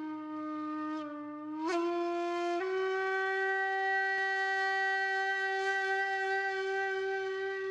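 Intro music: a single wind-instrument note with a rich, reedy set of overtones. It starts low, steps up slightly in pitch twice within the first three seconds, then is held as one long steady tone.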